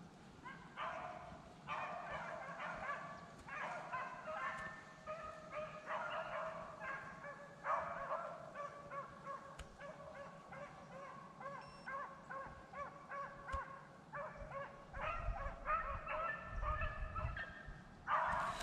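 A pack of beagles baying together while running a rabbit on scent, many voices overlapping, swelling and fading in waves with a lull midway.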